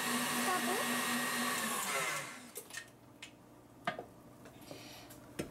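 KitchenAid stand mixer running with its wire whisk, beating egg whites into meringue, then winding down and stopping about two seconds in. A few light clicks and knocks follow as the mixer head is handled.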